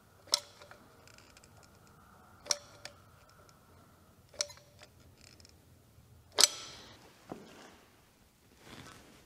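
Sharp metallic clinks of metal tools and parts knocking together, four of them about two seconds apart, each ringing briefly. The last is the loudest.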